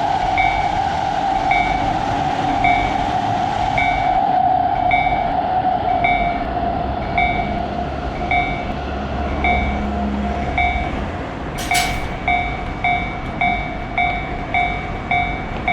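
Railroad crossing alarm sounding a short tone over and over, a little under twice a second, over the steady noise of a passing train. A sharp click comes near the end.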